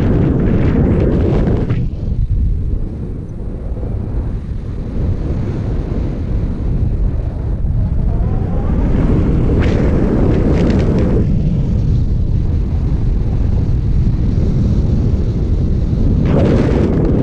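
Wind from the flight rushing over the camera's microphone on a paraglider pilot: a loud, steady low rumble. It turns hissier in gusts at the start, about ten seconds in, and again near the end.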